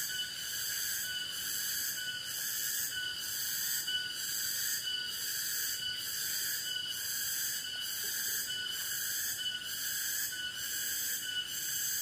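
Chorus of tropical forest insects: a dense, high-pitched shrill buzz that pulses at an even beat of about once a second, over lower steady trilling tones.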